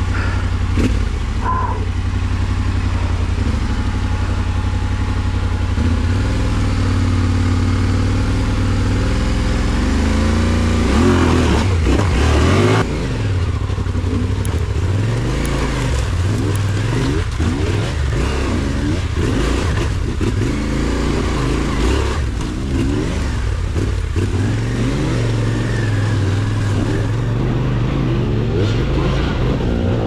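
Yamaha Ténéré 700's parallel-twin engine running at fairly steady low revs, then from about ten seconds in revving up and down again and again as the throttle is worked.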